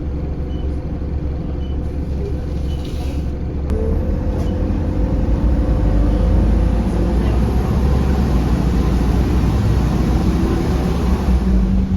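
Diesel engine of an Optare Solo M900 bus heard from inside the bus, running steadily. A faint regular tick sounds about once a second at first. About four seconds in, the engine gets louder and stays louder, as when the bus pulls away and picks up speed.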